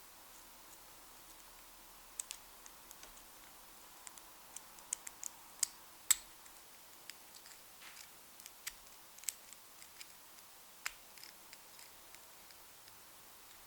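Metal lock pick and tension wrench clicking and scraping inside a transparent practice lock as its pin stacks are pushed and set: small, irregular clicks, the loudest a little past the middle.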